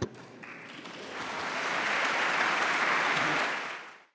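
Audience applauding, swelling over the first second or so, holding, then fading out near the end. A single sharp knock sounds right at the start.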